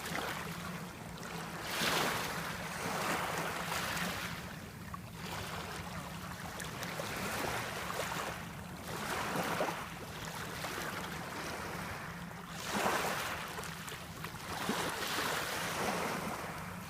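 Sea waves breaking and washing in, swelling and ebbing every few seconds, over a low steady hum.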